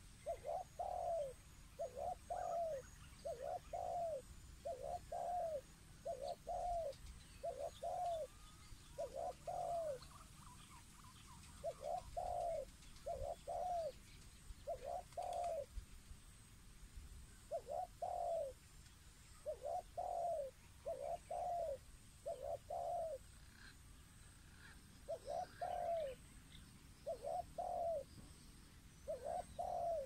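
Dove cooing: a long series of soft, arched coos, roughly one a second, in runs of several notes broken by short pauses.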